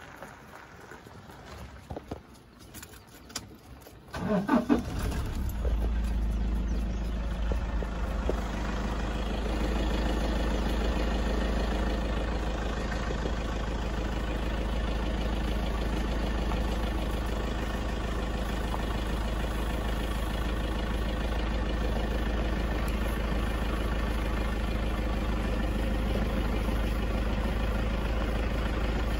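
Game-drive vehicle's engine started about four seconds in, then running steadily as the vehicle follows along.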